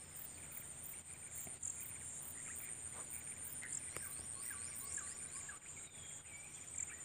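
Insects chirping steadily in a high, evenly pulsing drone, with a few faint higher chirps of birds or frogs mixed in.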